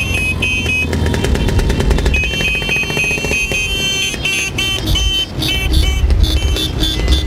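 A procession of motorcycles, many with sidecars, running past at slow parade pace, their engines making a steady low rumble. High-pitched tones sound on and off over it.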